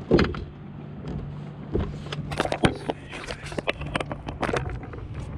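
Knocks, clatters and scrapes of fishing gear and the landing net being handled against the boat while a hooked lake trout is brought alongside, with a thump right at the start and a busy run of sharp knocks in the middle, over a steady low hum of the boat's motor.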